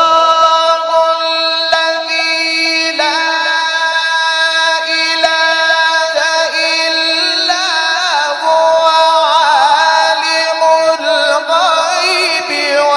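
A male Quran reciter's voice in melodic tajweed recitation, drawing out one long high note held steady, then ornamented with quick wavering turns about two-thirds of the way through.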